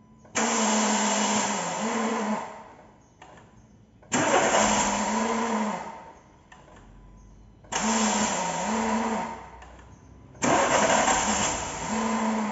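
Renault Sandero 1.6 8-valve starter motor cranked four times, about two seconds each, with a loud grinding whir. The mechanic puts the noise down, probably, to a faulty starter Bendix drive.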